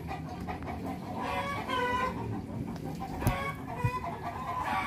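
An animal calling several times in pitched, drawn-out calls, the longest lasting about a second, a little after a second in.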